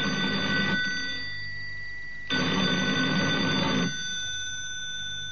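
Telephone bell ringing for an incoming call, in rings of about a second and a half that repeat roughly every three seconds. One ring fades out under a second in, a second comes at about the middle, and a third starts right at the end.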